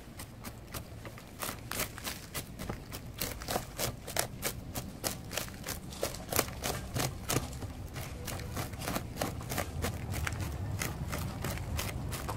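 Metal root hook raking through the root ball of a bougainvillea bonsai, each stroke a short scratch or click through the roots and soil, about three or four a second.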